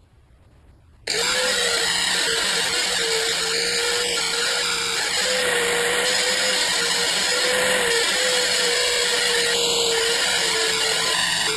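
Angle grinder switched on about a second in and running steadily under load as it grinds black paint off a small steel plate, with a steady motor whine over the grinding noise.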